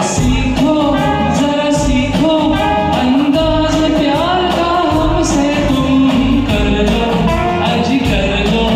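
Music: a Hindi film song sung by a male voice over a full instrumental backing track.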